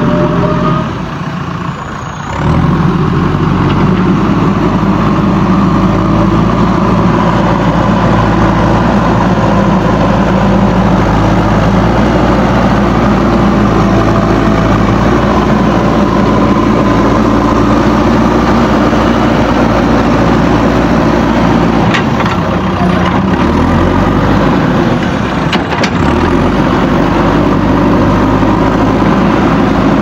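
JCB backhoe loader's diesel engine running steadily as the machine pushes its front bucket through brush and saplings.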